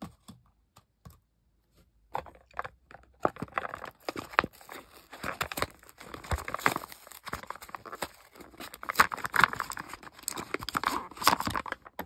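Ink cartridge's cardboard box being opened by hand, with tearing and scraping of the card, and the cartridge's clear plastic pouch crinkling as it is handled. A few light clicks first, then dense, irregular crackling for the rest.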